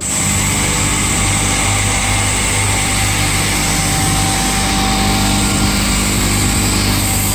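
Board edger, a circular-saw edging machine, running steadily: a low motor hum with a steady high saw whine.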